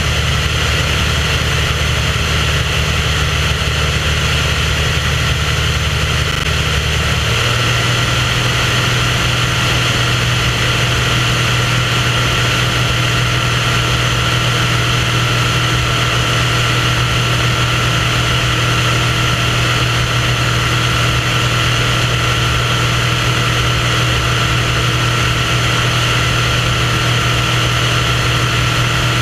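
Propeller engine of a small aircraft running steadily in flight, with a steady rush of air behind it; its note shifts to a new steady pitch about seven seconds in.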